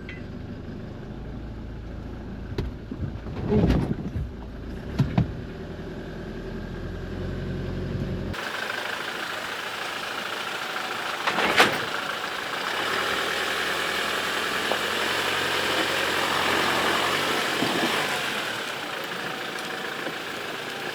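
Four-wheel-drive vehicle engine running as it climbs a rough off-road track section, with a few knocks and bumps. About eight seconds in, the sound changes abruptly to a louder, rushing engine and tyre noise, with one sharp knock a few seconds later.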